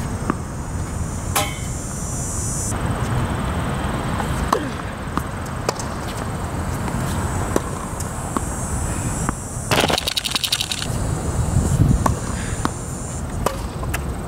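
Tennis ball struck by rackets and bouncing on the hard court during a rally: sharp pops a second or two apart over a steady low rumble, with a brief burst of rapid clicking about ten seconds in.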